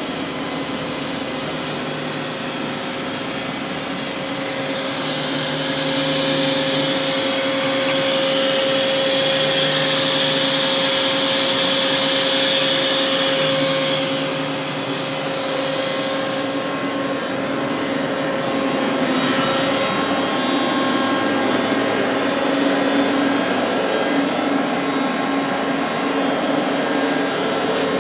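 Doosan V550 CNC vertical turning lathe running: a steady machine hum with whining tones over a hiss. It grows louder a few seconds in, and the sound changes about two-thirds of the way through, when the high hiss drops away.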